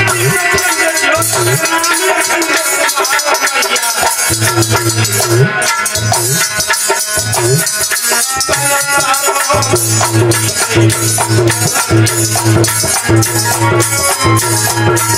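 Indian devotional song (a Durga vandana) in an instrumental passage: fast rattling percussion over a melody line, with a low drum beat coming in about four seconds in and settling into a steady pattern about halfway through.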